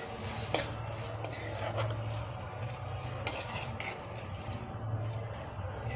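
A steel spatula stirring and scraping mashed eggplant and masala around a metal kadhai over a low sizzle, with a few clicks of metal on metal.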